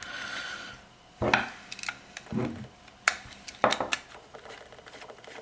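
Small metal parts and tools being handled: a handful of separate knocks and light metallic clinks, about one a second.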